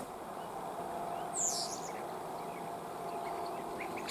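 Swollen creek flowing steadily, with small birds chirping over it; one louder chirp about a second and a half in.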